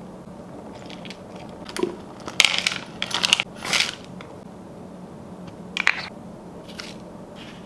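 Chopped nuts tipped from a metal measuring cup rattle and clatter into a plastic food processor bowl, in a few quick bursts from about two and a half to four seconds in, with one more short clatter near six seconds.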